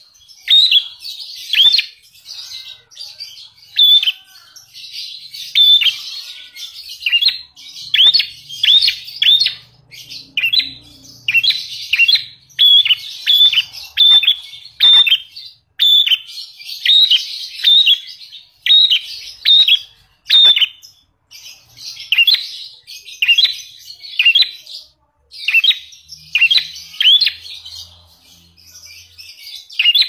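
Lovebird chirping in a fast series of short, sharp, high calls, about two a second, with a few brief pauses. This is the prenjak alas (prinia) song the lovebird has learned as a mimicked 'isian' phrase.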